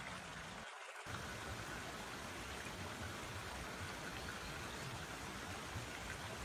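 A forest stream running, a steady rush of flowing water that briefly thins about a second in.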